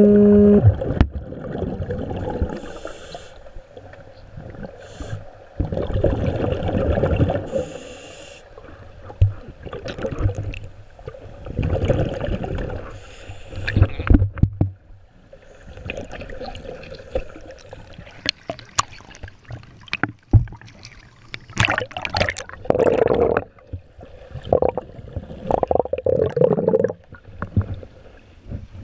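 Underwater sound picked up by a submerged camera. Bubbles from scuba divers' exhalations bubble in irregular bursts every few seconds over a low water rumble.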